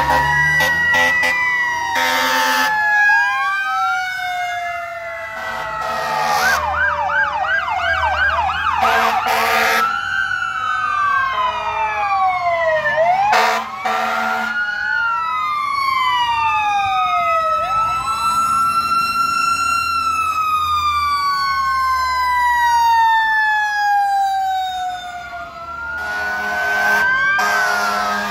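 Several fire-truck sirens sounding at once, their wails rising and falling and overlapping, with a fast yelp about six to nine seconds in. Short, loud horn blasts cut in several times over the sirens.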